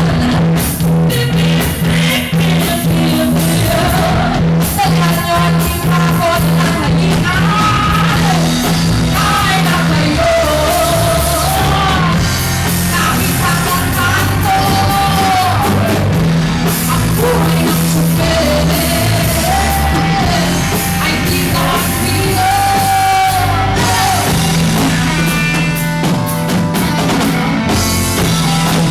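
Rock band performing live, with a lead voice singing a melody over a steady bass line and full band accompaniment.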